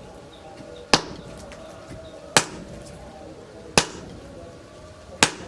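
Heavy hammer blows on steel at the forge: four evenly spaced strikes about a second and a half apart, each one a sharp metallic hit.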